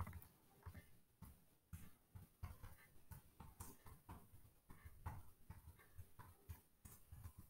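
Faint computer keyboard typing: irregular key clicks, several a second.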